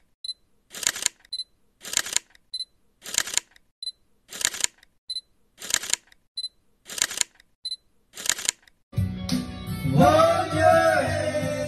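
A camera shutter clicks seven times, evenly about once every 1.2 seconds, as one group photo after another is taken. About nine seconds in, a man starts singing karaoke into a microphone over backing music, louder than the clicks.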